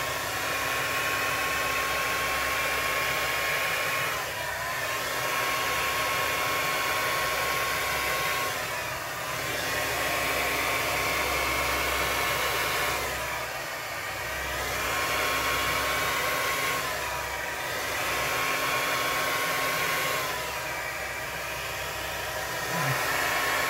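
Revlon handheld hair dryer running on its cool setting, a steady blowing rush with a motor whine; its pitch and level dip briefly about every four to five seconds.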